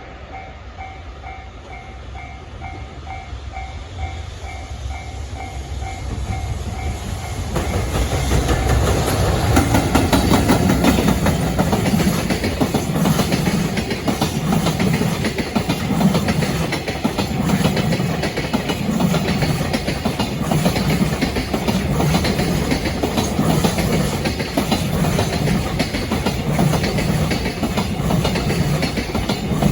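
A level crossing bell rings in a quick, even beat as a JR Freight train approaches. About seven seconds in, the train drowns it out as it passes: an electric locomotive and its freight wagons, the wheels clicking over rail joints about once a second.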